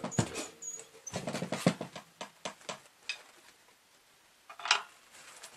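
Drum kit played in separate strokes: a run of drum and cymbal hits that thins out to a few light taps by about three seconds in, then one sharper short hit near the end.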